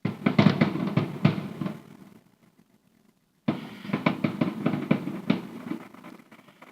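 Fireworks going off in two volleys of rapid bangs and crackles, each loud at first and then dying away, with a gap of silence between them.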